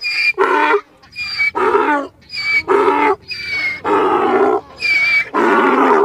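An animal calling over and over: about nine short pitched calls, each roughly half a second long, with brief pauses between them.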